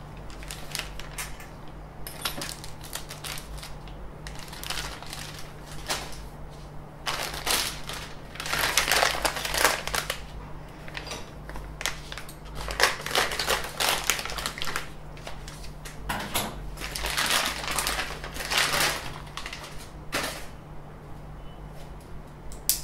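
Hands handling 3D-printer kit parts and their plastic packaging: irregular clicking and crinkling that comes in spells of a few seconds, with a sharp click near the end, over a steady low electrical hum.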